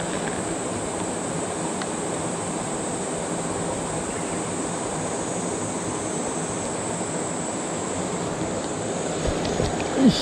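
Steady rush of a rocky mountain river's current flowing around the wading angler, with a short knock near the end.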